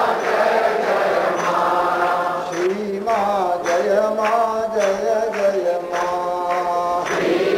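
Hindu devotional kirtan chanting. A group of voices chants together at first. From about two and a half seconds in, a single lead voice sings a line alone in gliding, held notes. The group comes back in near the end.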